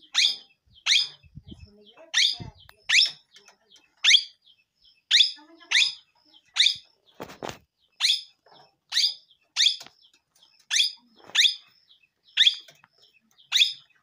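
Small pet parrot calling over and over: short, shrill squawks about once a second, each dropping in pitch. A few low thumps in the first seconds come from the hand the bird is perched on.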